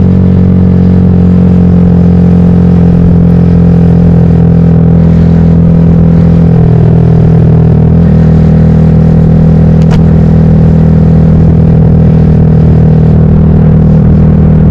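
Yamaha XSR155's single-cylinder engine running at steady cruising revs through a homemade full-system exhaust, heard from a helmet-mounted camera. The engine note drops a little about six and a half seconds in, then holds steady; a faint click comes about ten seconds in.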